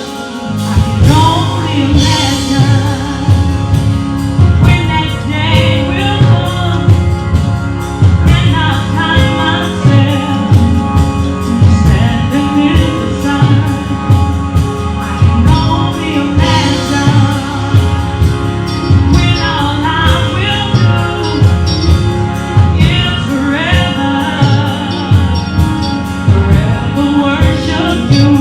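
Live gospel music in a church: voices singing over a band with drums, bass and keyboard, at a steady beat.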